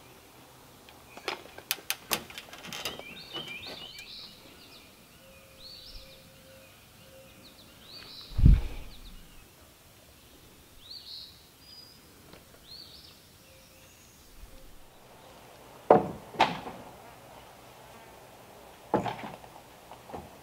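Songbirds chirping, with scattered sharp knocks of log rafters being handled and set on a timber frame: a few in the first seconds, one heavy low thud about eight seconds in, and more near the end.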